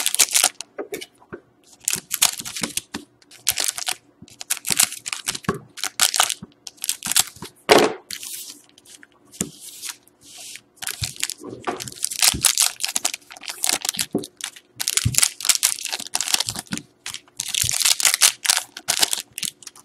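Foil trading-card pack wrappers being torn open and crinkled by hand, in a series of short rustling bursts.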